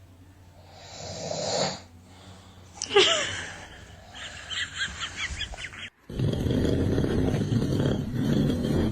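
Loud snoring in long rasping breaths, with a short squeaky gliding sound about three seconds in.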